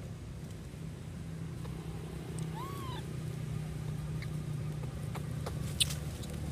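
A newborn macaque gives one short squeak that rises and falls, about two and a half seconds in, over a low steady rumble. A sharp click near the end is the loudest sound.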